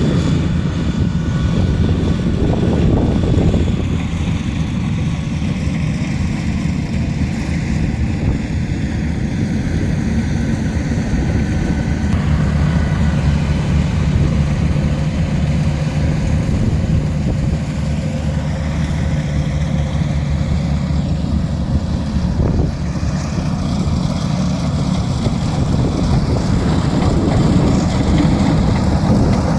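Rice combine harvester running steadily: a continuous low engine drone that grows somewhat stronger for a stretch midway.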